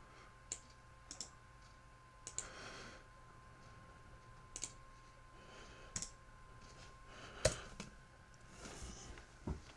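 Scattered clicks of a computer mouse and keyboard, about nine in all, the loudest about seven and a half seconds in, over a faint steady tone.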